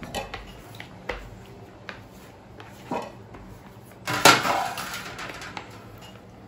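Kitchenware being handled on a worktop: a few light knocks and clicks, then a louder clatter about four seconds in.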